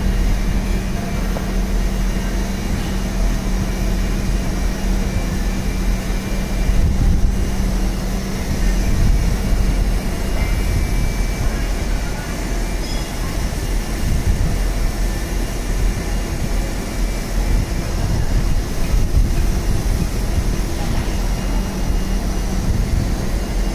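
Steady machinery running noise with a constant low hum and rumble, even in level throughout.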